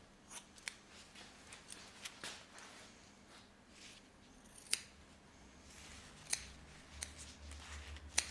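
Barber's scissors snipping, irregular sharp cuts of the blades closing, some crisper and louder than others, over a faint low hum.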